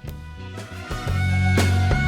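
Instrumental background music with a bass line and drum hits. It is quiet at first and gets louder about a second in.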